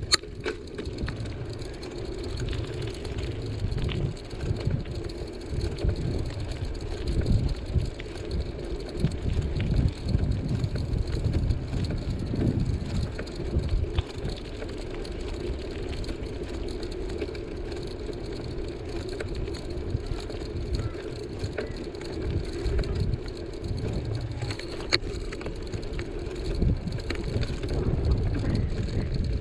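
Bicycle rolling along a paved street: steady riding and tyre noise, with an uneven low rumble of wind on the microphone. One sharp click right at the start.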